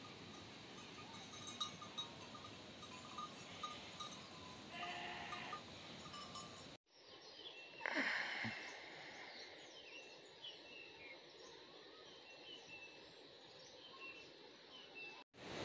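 A herd of goats on the move, bleating now and then over a steady rushing background. After a sudden cut about seven seconds in, the sound goes quieter, with one louder call about a second later and a few short high chirps.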